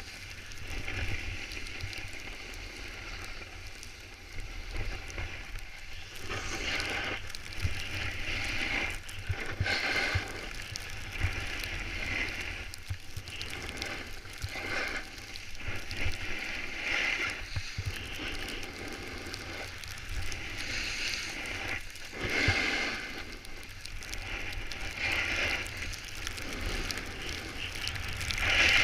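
Snowboard edges scraping across packed snow while carving turns, the crackly hiss swelling and fading every second or two, with a low wind rumble on the microphone.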